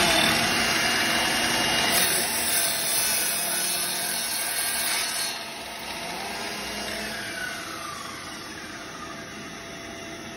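WORX cordless sliding miter saw running and cutting through a wooden board, the cutting noise loudest for the first five seconds. The blade then keeps spinning more quietly after the cut.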